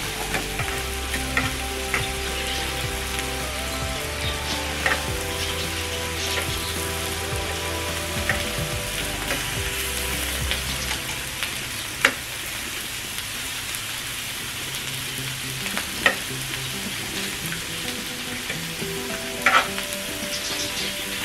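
Pork belly and onion slices sizzling steadily on a hot tabletop grill pan, with sharp clicks now and then as metal tongs knock against the pan while turning the meat.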